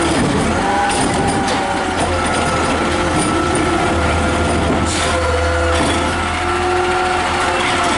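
McNeilus ZR side-loader garbage truck running hard with a steady hydraulic whine as its automated arm works, with a few short clanks and air hisses.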